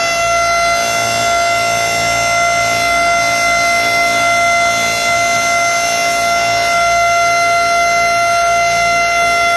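Federal Signal STH-10 outdoor warning siren sounding one steady, unchanging tone, loud and close, during its monthly test.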